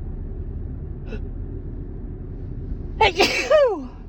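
A woman sneezes about three seconds in: a sharp burst of breath, then a voiced 'choo' that falls in pitch. Dust in the car set it off. The steady low rumble of the moving car runs underneath, heard from inside the cabin.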